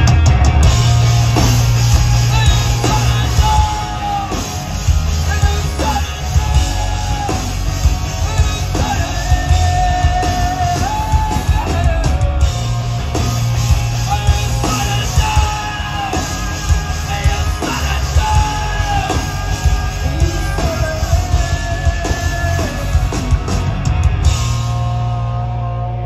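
Rock band playing live through a PA: distorted electric guitar, bass and drum kit at full volume. Near the end the drums stop and a last chord rings out and fades.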